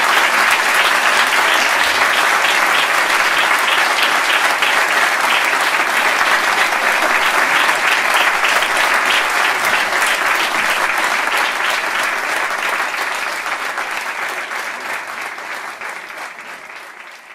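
Audience applauding, a dense, steady clapping that fades out gradually over the last few seconds.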